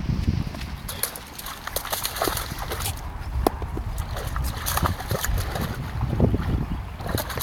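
English springer spaniel wading and splashing through ditch water, an uneven run of sloshes and spatters as its legs churn the water.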